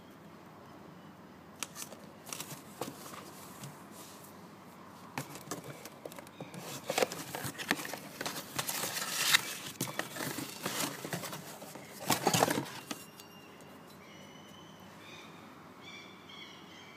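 Cardboard box flaps and crumpled packing paper rustling and crinkling while being handled, with scattered clicks and knocks. The handling is loudest in two bursts about two-thirds of the way through and then dies down, leaving a few faint short high chirps near the end.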